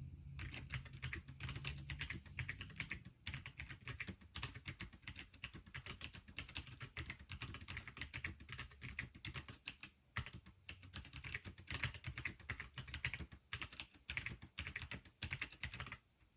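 Fast touch-typing on a Pinky4 split mechanical keyboard: a dense, uneven run of key clicks that stops abruptly near the end.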